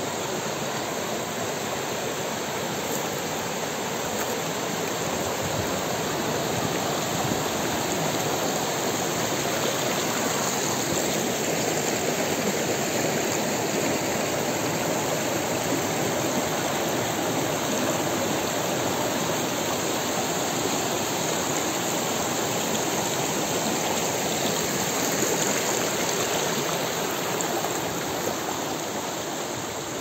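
Fast spring-fed mountain stream rushing and splashing over rocks, a steady, unbroken noise of running water.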